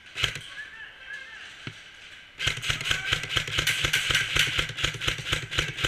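Airsoft gun firing, first a few single shots, then a fast continuous string of shots starting about two and a half seconds in.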